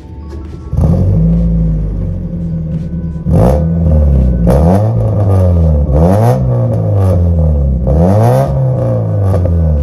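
Mazda Miata's inline four-cylinder engine heard through its exhaust, settling into a steady idle about a second in and then blipped four times, each rev rising and falling back to idle. The exhaust is now free of the leak that came from the muffler itself.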